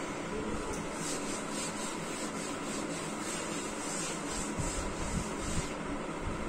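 Cloth duster wiping chalk off a chalkboard in quick back-and-forth strokes, about four a second, starting about a second in and stopping near the end, over a steady background hiss.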